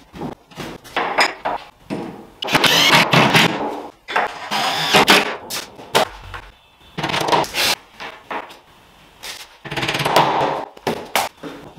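Knocks, thumps and scraping from a tall IKEA flat-pack cabinet being tipped upright and shifted on cardboard over a tile floor, in several irregular bursts with sharp knocks between them.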